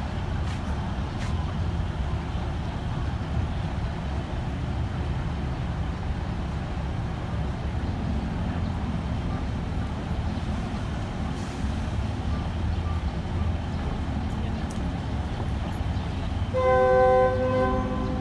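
State Railway of Thailand NKF-class diesel railcar standing at the platform, its engine idling with a steady low rumble. Near the end its horn gives one blast of about a second and a half.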